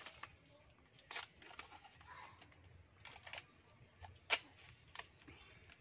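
Scissors snipping through the paper-and-tape wrapping of a small package, with crinkling of the wrapping between a few sharp cuts; the sharpest snip comes about four seconds in.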